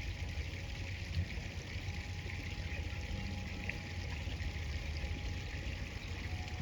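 Steady rushing of river water flowing, with a low rumble underneath.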